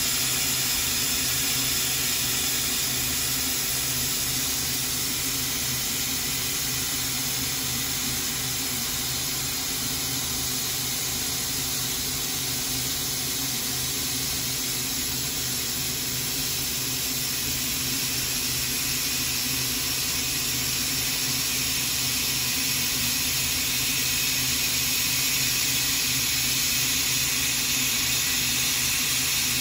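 CNC milling machine's high-speed spindle running with a small end mill cutting an aluminium part: a steady hiss with faint steady whining tones that barely changes throughout.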